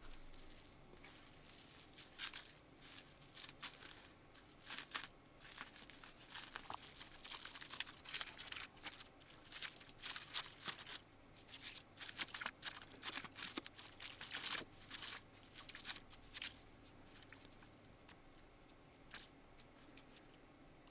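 Irregular crinkling and tearing of packaging, on and off for most of the stretch, as new replacement faders are unwrapped.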